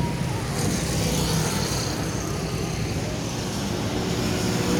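Steady road-vehicle noise: an engine running amid traffic. A higher hiss joins about half a second in.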